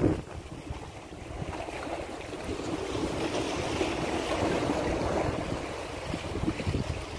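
Sea waves washing against breakwater rocks, swelling a few seconds in, under gusty wind buffeting the microphone.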